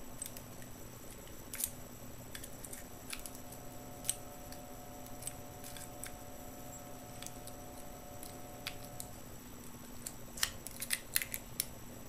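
Faint metal clicking of a wafer pick working the wafers of a garage door T-handle wafer lock: scattered single ticks, then a quicker run of clicks near the end as the lock turns to locked. A faint steady hum lies underneath.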